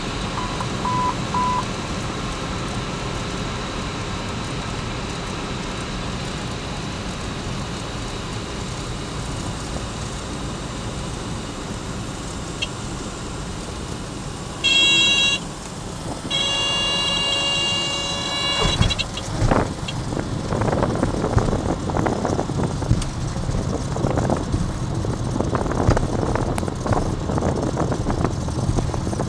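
Small plane's cabin noise during a landing: the engine drones steadily, with three short beeps about a second in. About fifteen seconds in, a warning horn sounds briefly and then again for about three seconds, typical of the stall horn as the plane flares. It is followed by rumbling and uneven bumps as the wheels touch down and roll out on the runway.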